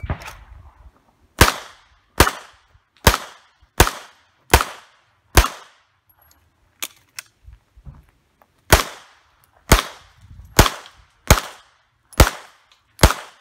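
Twelve 9mm pistol shots from a Glock 17 Gen 4: six at a steady pace, a pause of about three seconds, then six more, each shot a sharp crack with a short ringing tail.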